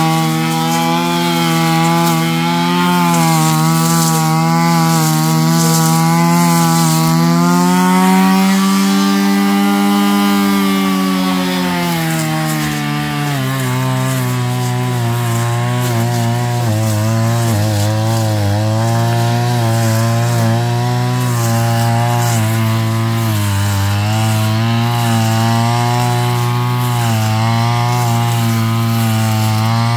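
Backpack brush cutter's engine running under load as the blade cuts through thick grass. The pitch climbs a little a third of the way in, drops sharply about halfway through, then wavers up and down as the blade bites into the growth.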